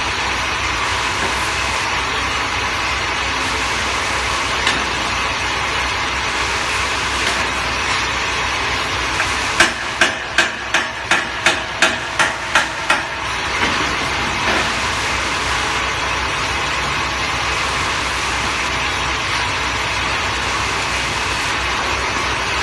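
Vibratory bowl feeder running: a steady buzzing rattle of small parts being shaken up the bowl's spiral track. About ten seconds in, a run of about nine sharp knocks comes at roughly three a second and stops after about three seconds.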